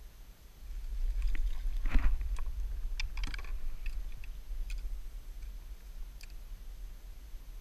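Clicks and knocks from a fishing rod and reel being handled during a cast from a kayak, over a low rumble; the sharpest knock is about two seconds in, followed by a quick cluster of clicks and a few scattered ones later.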